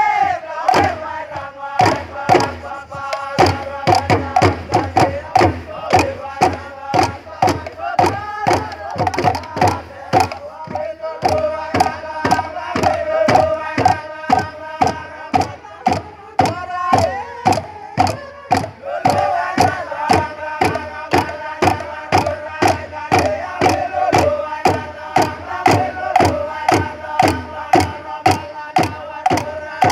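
A group of voices chanting together in long held notes over a steady, fast drumbeat: the ceremonial song and drumming for a tumbuan masked dance. The singing falters briefly about two-thirds of the way through, then comes back in full.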